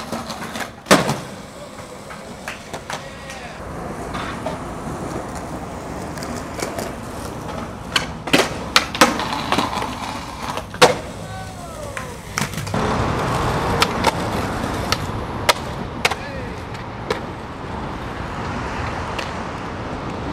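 Skateboard wheels rolling on concrete, broken by sharp clacks of tails popping, trucks and boards striking a concrete ledge and landings, many times over; the rolling gets louder about two-thirds of the way through.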